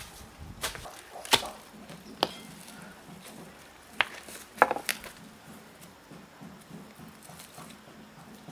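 A long-handled digging tool striking into soil and roots at the base of a hazelnut tree, digging out young suckers with their roots: six sharp knocks in the first five seconds, two of them ringing briefly, the loudest about a second and a half in and just after four and a half seconds.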